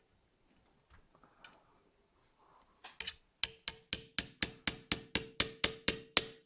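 Small gunsmithing hammer tapping steadily on a metal part, about four light strikes a second with a short metallic ring on each, starting about three seconds in after some quiet handling of parts.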